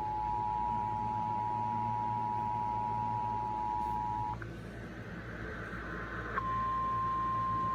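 Emergency Alert System attention signal: two steady tones sounding together, cut off about four seconds in. After a quieter stretch of about two seconds, a single steady tone a little higher in pitch starts and holds, the kind of alert tone that comes before a weather warning.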